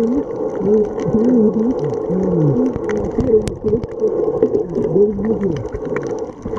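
A muffled voice heard through water, its pitch wavering up and down, over a bed of fine crackling ticks.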